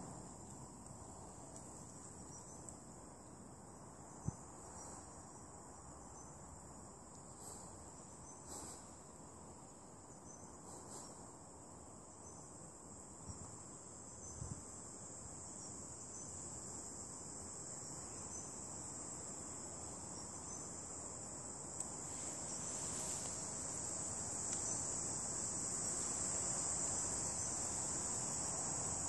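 A steady, high-pitched chorus of insects that grows louder through the second half, with a few faint knocks.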